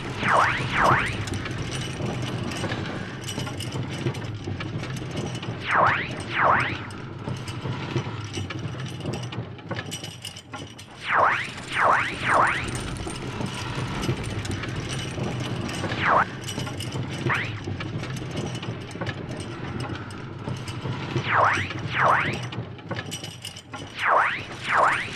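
Cartoon soundtrack of skateboards rolling: a steady rattling rumble of wheels on asphalt, broken about every five seconds by clusters of two or three short swooping effects, each dipping in pitch and rising again.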